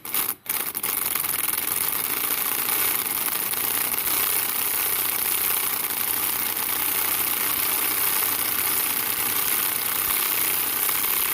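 DeWalt 12-volt 3/8-inch drive cordless impact wrench hammering on a rusted, seized bolt at a light setting. It gives a couple of short bursts at the start, then runs steadily without a break.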